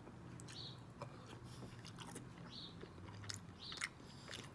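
A person chewing rotisserie chicken with the mouth close to the microphone, with irregular small wet clicks and smacks as they eat.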